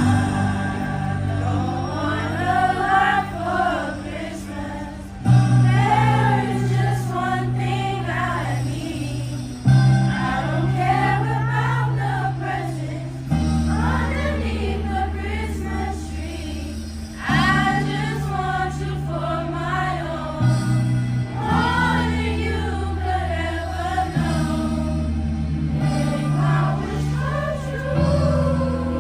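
Middle school chorus singing in unison phrases, over held accompaniment chords that change every few seconds.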